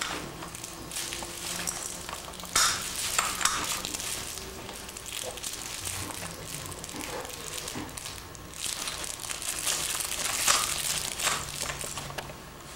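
Light rustling and clicking of a baby's plastic stroller toy bar being handled, over a steady hiss, with a few louder rustles about a third of the way in and near the end.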